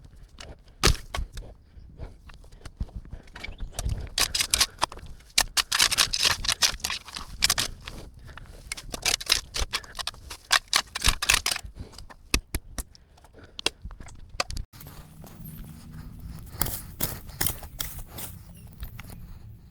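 A shovel blade scraping and chopping into compacted, wet dirt, in rapid runs of sharp scrapes and knocks, heaviest through the middle. It breaks off abruptly about fifteen seconds in, and after that a second short run of strokes comes over a low steady hum.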